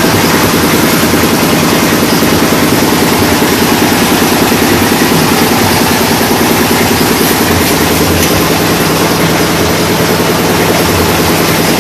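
Clay brick-making machine running steadily under its engine drive, a continuous machine drone with a fast, even pulse.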